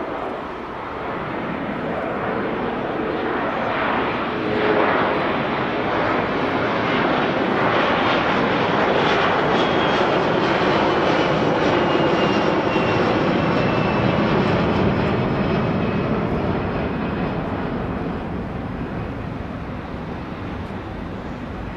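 Boeing 747-400's four General Electric CF6-80C2 turbofans at takeoff thrust: loud jet engine noise that builds over the first several seconds, holds through the middle, then slowly fades.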